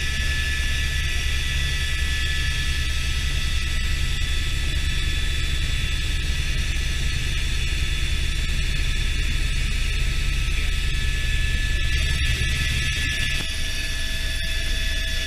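Helicopter in flight heard from inside the cockpit: a steady low rotor and engine drone with a high turbine whine over it. Near the end the low drone eases a little and a new steady mid-pitched tone comes in.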